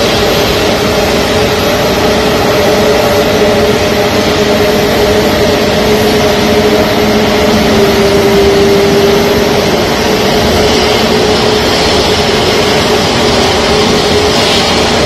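Aircraft engines running steadily as a plane taxis: a loud, even rush with a steady hum underneath.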